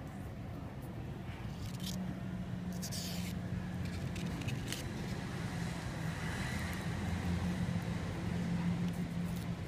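Steady low background hum, growing slightly louder toward the end. Over it come a few brief faint scrapes and clicks of fingers handling monofilament fishing line and a feathered hook during knot tying.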